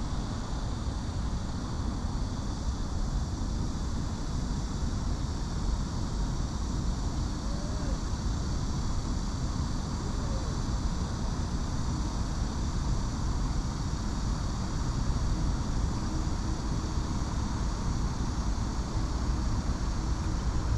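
Steady low rumble of distant city road traffic, with no single vehicle standing out, and a faint steady high-pitched ringing on top.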